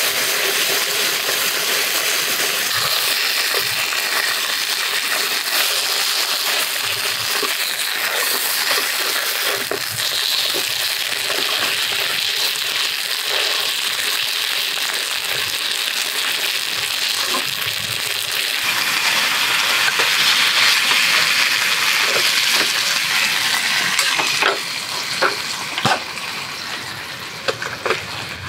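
Lamb chops sizzling in a frying pan over a gas burner, their fat spitting, a steady hiss that grows louder past the middle. About four seconds before the end the sizzle drops in level, and a few light clicks follow.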